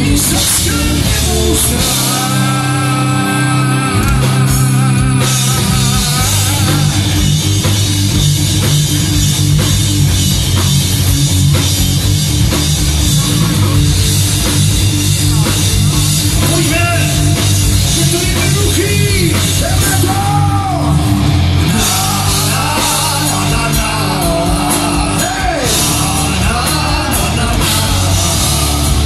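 Live rock band playing loud: distorted electric guitars, electric bass and a drum kit, with a wavering lead melody that holds notes about two to five seconds in and bends up and down later on, heard from the audience.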